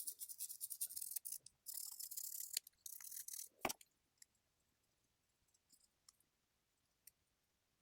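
Faint wiping and rubbing on the smartwatch's back while it is cleaned with alcohol, in short hissy strokes with small clicks, ending in a sharper click about three and a half seconds in. After that, only a few faint ticks.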